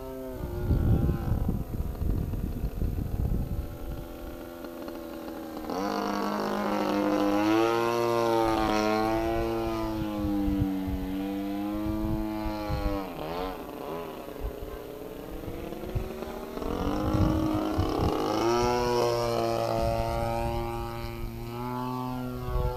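Radio-controlled Edge 540 aerobatic model plane in flight, its engine and propeller note repeatedly rising and falling in pitch as it manoeuvres. Wind rumbles on the microphone during the first few seconds.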